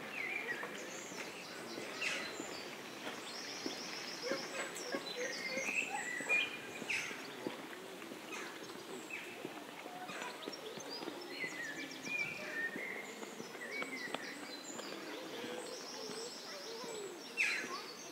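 Small songbirds chirping and trilling repeatedly, short rising and falling calls with quick high trills, over a steady outdoor background noise.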